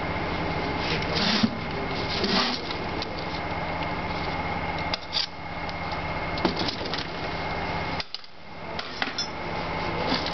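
Steady workshop machine hum with a few scattered metallic knocks and clatters of parts and tools being handled; the hum drops off sharply about eight seconds in, then builds back up.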